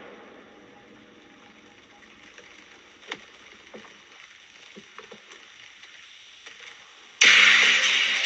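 Faint steady hiss with a few small clicks, then loud music starts abruptly near the end.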